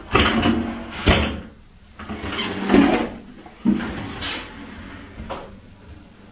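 Glass shower-enclosure door being handled: a run of short knocks and scrapes, about six in all, the loudest a little after one second and near three seconds.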